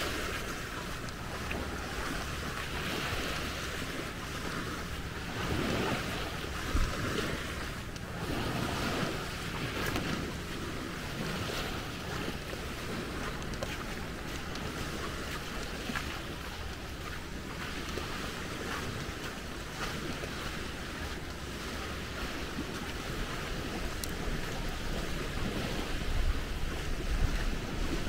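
Sea waves washing onto the beach in a steady wash, with wind buffeting the microphone.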